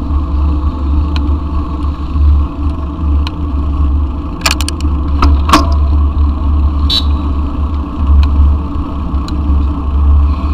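Steady low rumble of a mountain bike rolling over brick paving, with wind buffeting the bike-mounted camera's microphone. A few sharp clicks and rattles come around the middle.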